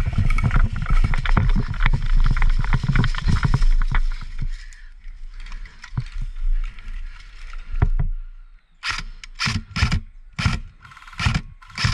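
Heavy thumping and rustling of a player running with gear, wind buffeting the microphone. From about nine seconds in, a string of sharp single shots at irregular spacing from a scoped airsoft DMR fired semi-auto.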